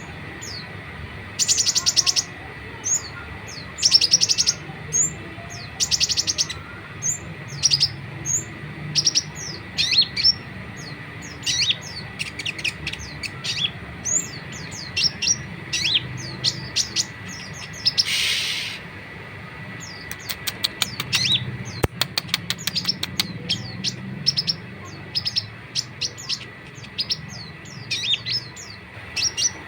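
A konin songbird singing actively: many sharp, high chirps broken by several fast chattering trills.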